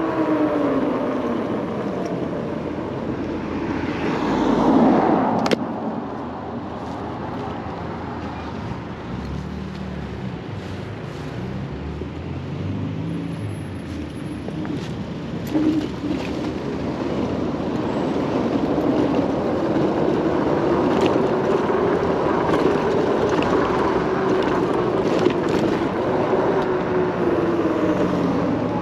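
Kaabo Wolf King GT electric scooter riding along with its hub motors whining under a rush of wind and road noise. The whine falls in pitch as the scooter slows at the start, runs quieter through a slow stretch, then rises again as it speeds up over the last ten seconds. There is a brief louder rush about five seconds in.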